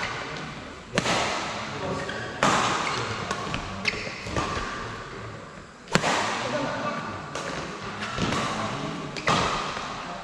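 Badminton rally: rackets striking the shuttlecock in a string of sharp hits, roughly one every second or so, each echoing in the hall, over background voices.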